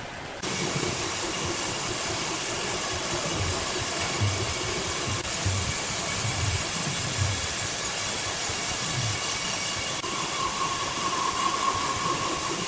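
Sawmill machinery running: a steady, loud hiss with a high whine through it and irregular low thumps. It starts abruptly about half a second in, and a stronger whine comes in near the end.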